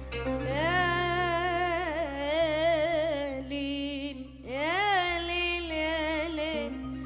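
Arabic song: a solo voice sings two long, wordless, ornamented phrases with heavy vibrato, over a steady low accompaniment.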